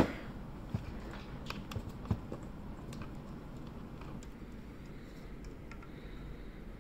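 Scattered light clicks and taps of small objects handled on a workbench as a multimeter and its test leads are fetched, mostly in the first few seconds with a few more near the end, over a steady low room hum.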